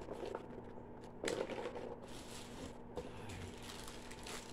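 Faint rustling of tarot cards being handled, in a few short bursts.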